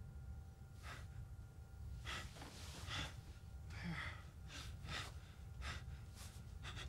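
A man breathing hard in about a dozen short, quick, ragged breaths over a low steady hum.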